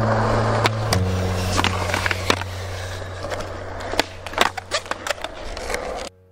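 Skateboard wheels rolling on smooth concrete, with sharp clacks of the board about four seconds in as the tail is popped for a flip trick and the deck lands back on the wheels. The sound cuts off suddenly near the end.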